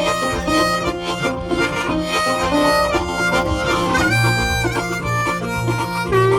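Background music: an instrumental blues tune led by harmonica over a steady bass line.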